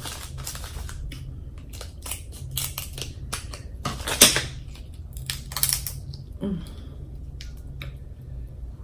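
Shellfish shell being peeled and cracked apart by fingers close to the microphone: an irregular run of crisp cracks and crackles, loudest about four seconds in.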